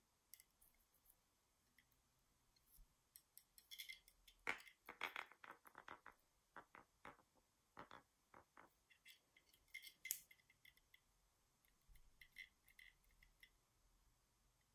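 Faint scattered clicks and soft crackles of plastic objects being handled and pressed down onto a tabletop. They are thickest about four to six seconds in and thin out toward the end.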